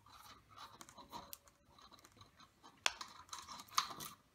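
Small metallic clicks and scraping of tongue-and-groove pliers on a cable crimp sleeve, with rustling of the wire cable being handled; two sharper clicks in the second half. The sleeve is the wrong size for the cable and will not crush.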